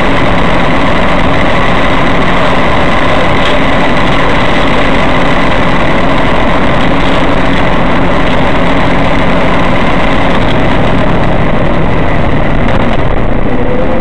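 Vehicle engine running and road noise inside the cab at steady highway speed, picked up by a dash cam's microphone: a loud, unchanging drone with a few steady whining tones.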